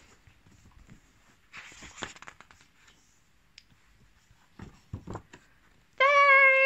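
A picture-book page being turned by hand, a papery rustle about a second and a half in, with a few small handling sounds after it. Near the end a woman's voice holds one long, high, steady note.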